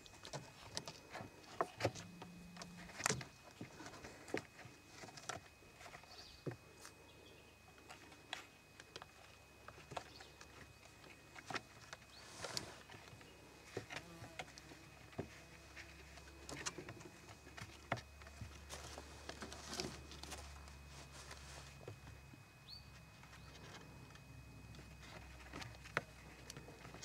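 Kittens play-fighting on weathered wooden planks: irregular light taps, scuffs and scrabbles of paws and claws on the boards and on each other.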